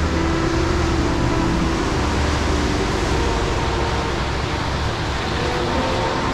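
Steady rushing noise of a winter storm, wind and surf, with quiet held notes of music underneath.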